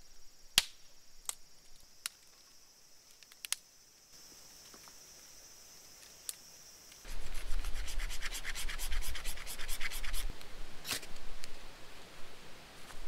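A few sharp snaps of dry twigs being broken, then a few seconds of fast, rhythmic rubbing and scratching as dry bark tinder and kindling are worked by gloved hands to get a fire going, with another single scrape near the end.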